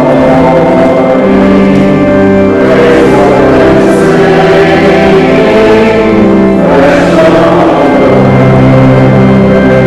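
A church choir singing a hymn in long held notes.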